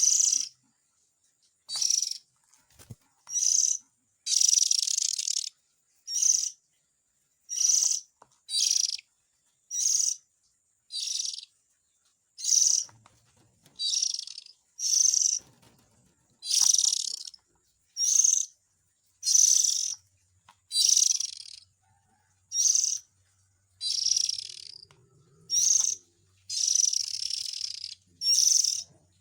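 Oriental magpie-robin (kacer) giving harsh, hissing calls over and over, roughly one a second, a few drawn out to about two seconds. The calls are from a trapping-lure recording of parent and chick calls.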